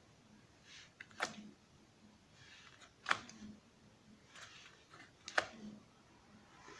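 Kugoo M5 electric scooter's rear wheel turning with its disc brake caliper adjusted clear of the disc: no brake rubbing, only a faint hiss and three sharp clicks about two seconds apart.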